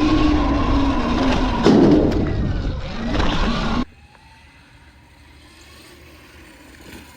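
Sur-Ron electric dirt bike being ridden: a faint motor whine over loud wind and tyre noise, with a louder stretch about two seconds in. Then the sound cuts off abruptly to a quiet, faint background.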